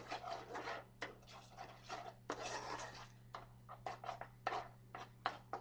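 Seasoning being shaken from a shaker into a pan of gravy: irregular light clicks and short rattling hisses, the longest a little over two seconds in, over a steady low hum.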